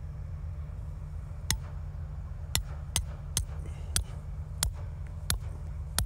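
Hand hammer striking a metal tool held against chimney brickwork: about seven sharp, ringing blows at an uneven pace, starting about a second and a half in, over a low steady hum.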